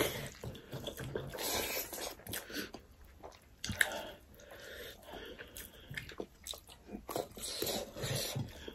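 Close-miked mukbang eating sounds: two people chewing and biting food eaten by hand, with scattered wet mouth clicks and smacks and one sharper click about four seconds in.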